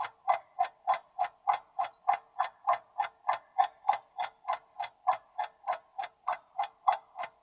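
Clock-style ticking sound effect of a quiz countdown timer: an even, regular tick about three times a second, stopping near the end.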